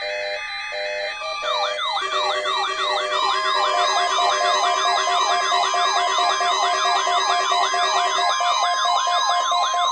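Mock emergency alert alarm. A few steady musical notes give way, about a second in, to a loud stack of rapid wailing siren sweeps, about three a second, layered over steady tones, with a long steady alert tone joining a couple of seconds later.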